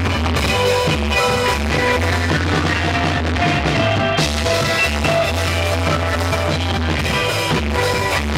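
A live rock band playing loud: electric guitar over a pulsing bass line and drums.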